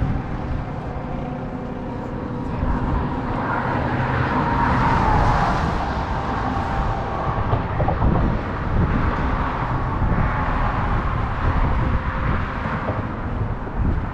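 Steady road traffic noise, with one vehicle passing louder about four to six seconds in.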